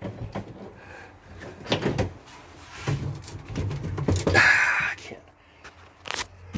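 Handling noise from a hand and handheld camera working inside a personal watercraft's hull: uneven knocks, clicks and rubbing, with a longer scraping rustle about four seconds in.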